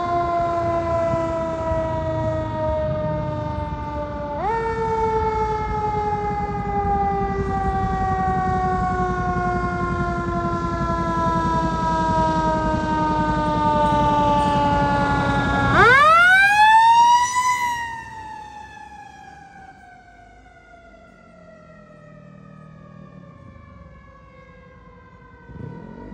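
Fire engine's air horn held in two long blasts, the pitch sagging slowly through each, over the truck's engine rumble. About sixteen seconds in, its siren winds up sharply to a loud peak, then winds down slowly and fades as the truck pulls away.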